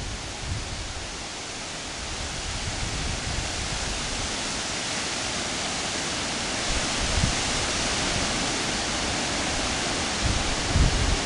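Steady wind hiss on the microphone, with a few low buffets near the end.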